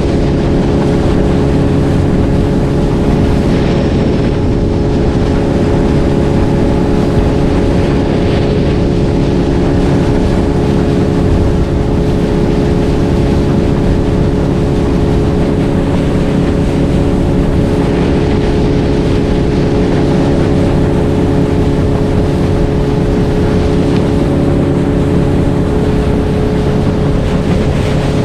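Motorboat engine running steadily at speed while the boat is underway, a constant drone with no change in pitch.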